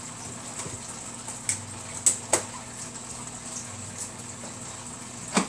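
A few light taps and rubs from latex balloons being handled, over a steady low hum.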